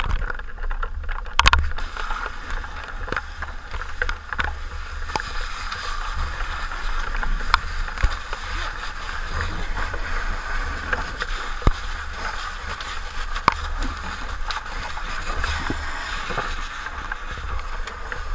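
Fire hose nozzle spraying water into a burning room: a steady rush and hiss of water, with a few sharp knocks scattered through it.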